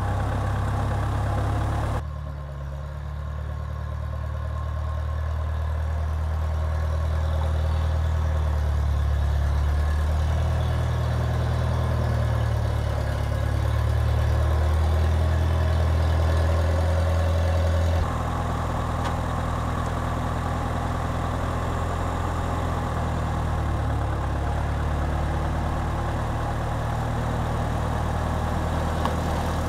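Farmall Cub tractor's small four-cylinder engine running steadily with a low hum, changing abruptly twice where clips are cut together.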